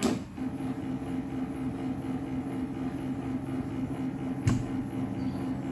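Stepper motors of a DIY CO2 laser cutter's gantry humming steadily as a GRBL homing cycle drives the gantry toward its home corner. A sharp click comes about four and a half seconds in.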